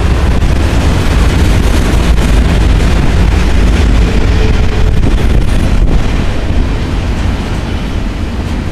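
Freight train of empty double-stack well cars rolling past close by: a loud, steady rumble of steel wheels on rail with a couple of clanks, and wind buffeting the microphone.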